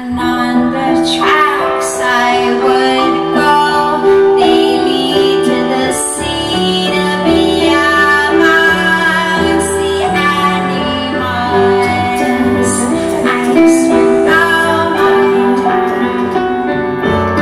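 A woman singing long held notes over piano accompaniment, with the low piano notes shifting about six seconds in.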